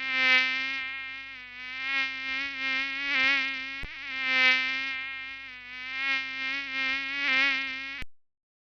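Flying mosquito whining, one steady buzzing tone with many overtones that swells louder and softer again and again as if passing close by. There is a brief click about four seconds in, and the whine cuts off abruptly near the end.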